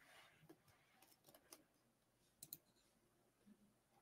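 Near silence with a few faint, scattered clicks of someone working a computer, including a quick pair about two and a half seconds in.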